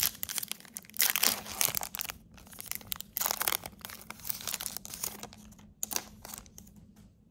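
Foil wrapper of a Topps Chrome trading-card pack being torn open and crinkled. The crackling comes in bursts, loudest about a second in and again about three seconds in, and dies away near the end.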